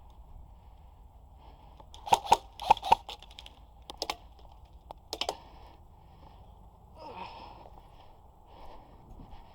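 Airsoft guns firing: sharp snaps, two quick pairs about two seconds in, then two more single shots, over a steady rumble of wind on the microphone.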